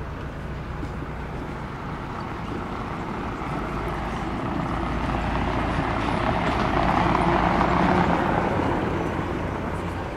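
A motor vehicle passing by, its engine and tyre noise growing louder to a peak about three-quarters of the way through, then fading away.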